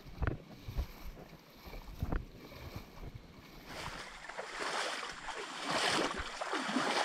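Water splashing and sloshing around the legs of someone wading through a shallow stream. A few soft knocks come in the first couple of seconds; from about four seconds in the splashing grows louder, swelling with each stride.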